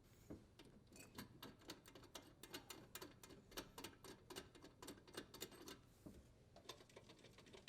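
Faint, quick series of small clicks as the dishwasher's leveling legs are turned to lower the appliance.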